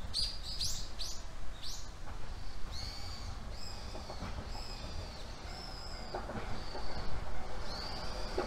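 A bird calling. It gives a few quick upward-sweeping chirps in the first two seconds, then a steady run of short arched calls about once a second, over a low steady rumble.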